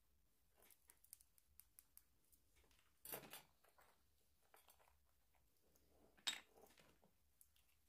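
Faint clicks and scrapes of a thin metal pick stirring powder in a small glass jar, then handling of a small powder jar, with a short rustle about three seconds in and a sharp knock about six seconds in, the loudest sound.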